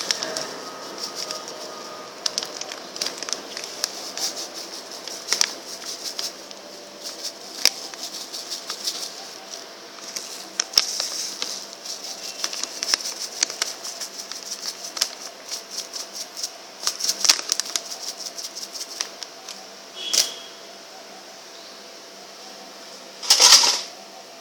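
Raw chicken being worked by hand in a soy-sauce marinade in a glass bowl: a fast, uneven run of wet clicks and squelches, with a louder burst near the end.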